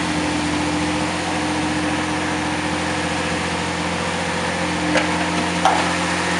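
Pickup truck's engine idling steadily, with two short knocks near the end.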